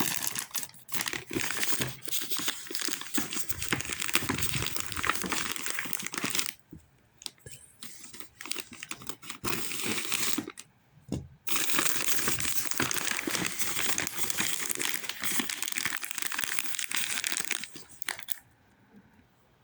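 Shipping packaging being crumpled and torn open by hand: dense crinkling and rustling, with two short pauses, that dies away near the end.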